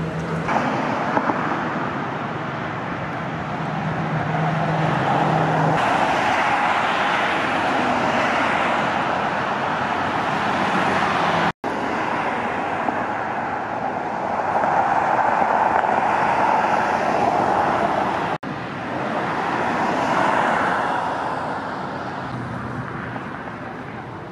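Road traffic noise: tyre and engine noise of cars on the street, swelling and fading as vehicles pass, with a low steady hum in the first half. The sound drops out for an instant twice.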